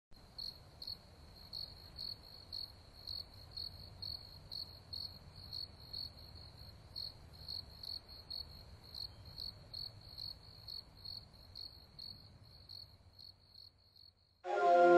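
A cricket chirping steadily, a high-pitched chirp about twice a second over faint background hum. Near the end the chirping stops and music with held, chiming notes comes in.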